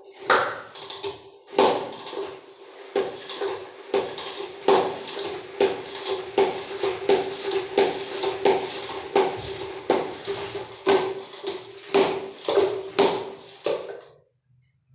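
Spin mop being wrung out: the handle is pumped down into the bucket's spinner about once every 0.8 s, each stroke with a knock, while the mop head spins with a steady whir. It stops about a second before the end.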